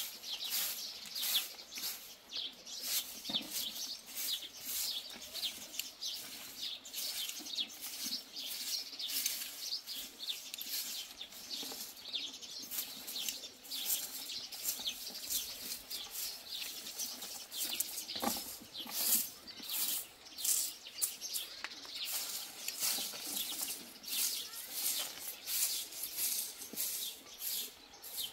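Bundled straw broom sweeping plastered ground in quick, repeated swishing strokes.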